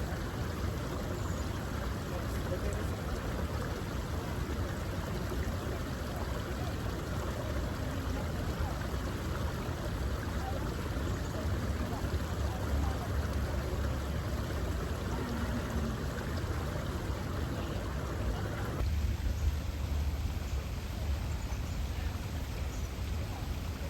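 Brook water running steadily over rocks, an even rushing with a low rumble; the brighter part of the rush drops away abruptly near the end.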